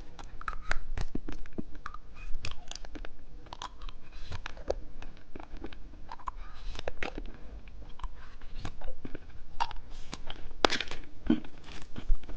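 Close-miked biting and chewing of watermelon bubble gum: irregular crunches and wet mouth clicks, with a few louder crunches near the end.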